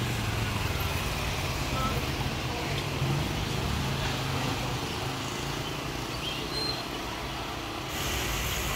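Street traffic ambience: the steady low hum of motor vehicle engines running. The background shifts abruptly near the end.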